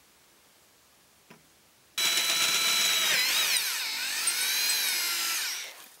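Electric drill motor starting abruptly about two seconds in, its whine dipping and wavering in pitch as the bit bores out a pilot hole in a bicycle frame tube, then stopping just before the end.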